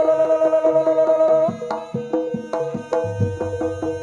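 Live Javanese jaranan music from a gamelan-style ensemble: a quick, even run of struck pitched notes, about five or six a second, over hand-drum (kendang) strokes. A held high note sounds over them and stops about a second and a half in.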